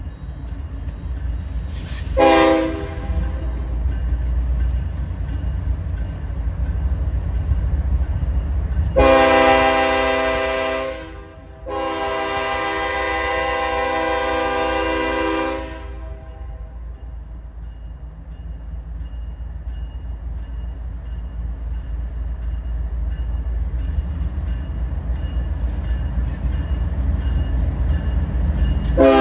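Diesel locomotive horn on a BNSF coal train, blown in several blasts: a short one about two seconds in, two long blasts from about nine to sixteen seconds, and a fresh blast just at the end. Under it the train runs past with a steady low rumble.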